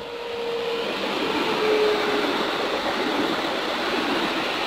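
Modern passenger multiple-unit train passing close by at speed: a rising rush of wheels on rail that grows loud within the first two seconds and stays loud, with a faint hum that drops in pitch as it goes by.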